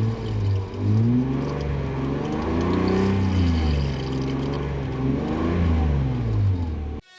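Car engine revved up and down about three times, its pitch rising and falling with each rev, then cutting off suddenly near the end.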